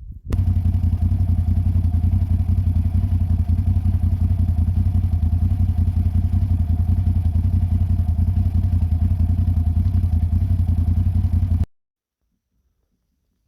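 An engine running steadily with a fast, even low throb. It starts suddenly and cuts off abruptly near the end.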